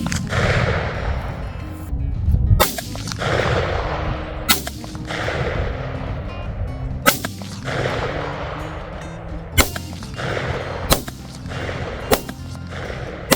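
Browning BLR .308 lever-action rifle firing a string of single shots, about seven sharp cracks at uneven spacing of one to two and a half seconds, each trailing off in an echo, over background music.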